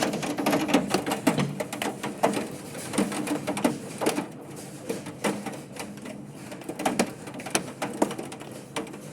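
Hailstones falling with rain, striking a hard surface in a dense, irregular patter of sharp ticks and knocks that thins out for a moment midway and then picks up again.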